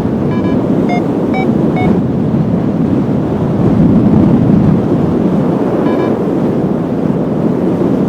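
Strong wind rushing over the microphone in paragliding flight, a loud, steady roar. A few short beeps cut through it: four in the first two seconds and one more about six seconds in.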